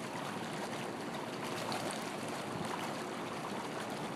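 Swimming pool water sloshing and lapping steadily, with small splashes, as people move through it.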